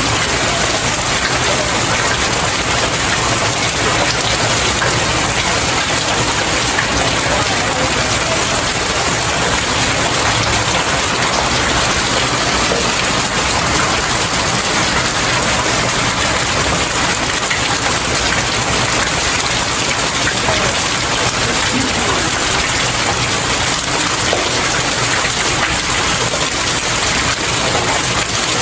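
Steady rain falling on outdoor stairs, an even, unbroken hiss of many drops splashing on the steps.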